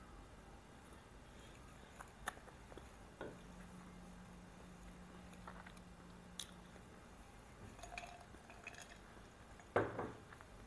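Close-miked chewing of a mouthful of soft pita wrap, with faint scattered wet mouth clicks and smacks and a louder smack near the end.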